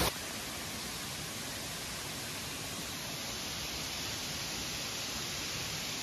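Steady rushing hiss of running water from the waterfall's cascades, even and unbroken.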